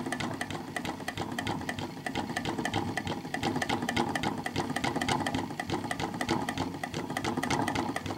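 Hand-cranked 1879 B. Eldredge Automatic sewing machine running, its mechanism making rapid, steady clicking.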